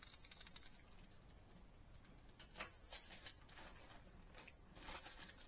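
Near silence with faint, scattered clicks from hard-plastic fishing lures being handled, including a quick run of small clicks about the first second.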